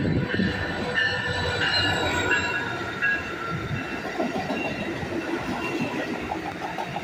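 Amtrak Pacific Surfliner bilevel passenger train rolling past, with a steady high metallic squeal in several tones, strongest in the first few seconds, over the rumble of its wheels on the rails.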